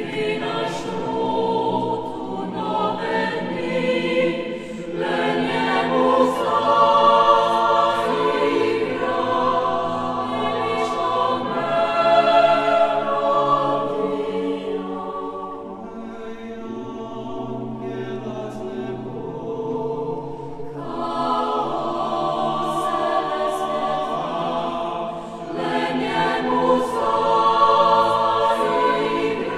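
Six-part mixed choir singing a cappella in sustained chords. The voices soften to a quieter, thinner passage about halfway through, then swell back to full volume.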